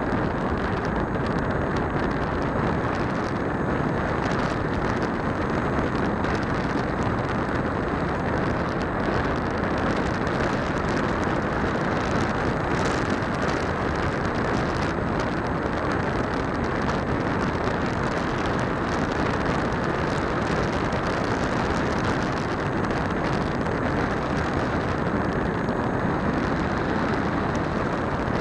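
Steady rushing wind noise of airflow over the microphone of a keychain camera riding on an electric RC trainer plane in flight, with no distinct motor tone standing out.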